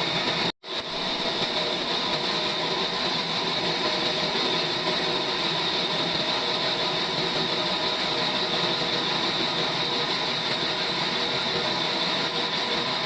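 Sawmill trolley machine running steadily, with a brief gap about half a second in where the sound drops out completely.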